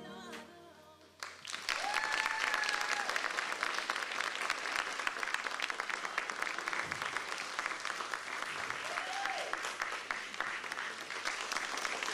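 Audience applauding and clapping, starting about a second in as the music dies away.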